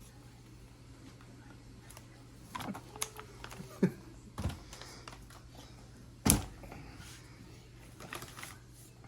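Scattered knocks and clunks of cardboard firework cake boxes being handled and set down, with one loud knock about six seconds in.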